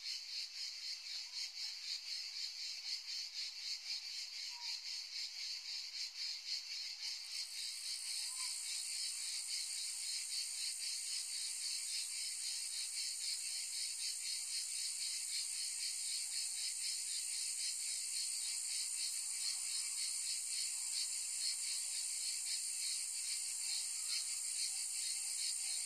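Cicadas chirring in a dense, high-pitched chorus with a fast pulsing rhythm. A second, higher layer of song comes in about seven seconds in and carries on.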